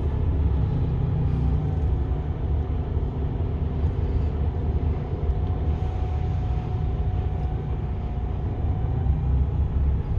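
Heard from inside the cab of a Mercedes-Benz Arocs concrete mixer truck on the move: the diesel engine and drivetrain give a steady low rumble, with a faint steady whine in the middle of the stretch.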